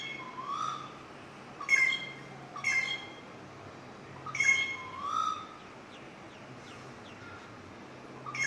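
A bird calling loudly in harsh, nasal, many-toned calls that come in pairs: three pairs in the first five and a half seconds, then a single call near the end.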